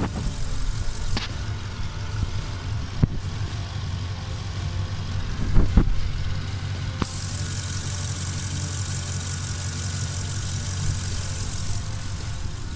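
Chevrolet Camaro SS V8 idling steadily, with a few light knocks and a high hiss from about seven seconds in until just before the end.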